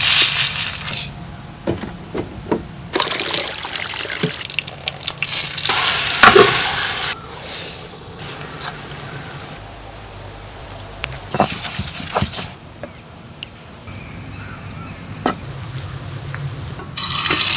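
Water pouring and splashing in several short spells, with a few knocks and clicks in between.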